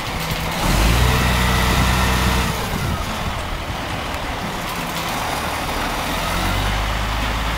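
Crane's engine running, its speed and loudness stepping up about a second in, easing back after a couple of seconds, and rising again near the end.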